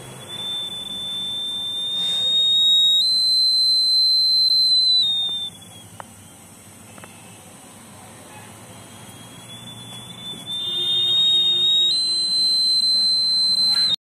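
Piezo buzzer of a homemade fire-alarm circuit sounding a continuous high-pitched tone, set off by a flame held near the circuit's sensor. It sounds for about five seconds, stepping up a little in pitch before sagging and cutting out, then starts again about ten seconds in and keeps sounding to the end.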